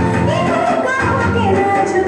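Music with a singing voice over instrumental backing.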